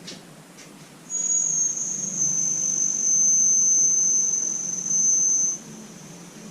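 A loud, high-pitched steady tone, like a trill or whine, starts about a second in, dips slightly in pitch at first, then holds for about four and a half seconds and cuts off suddenly.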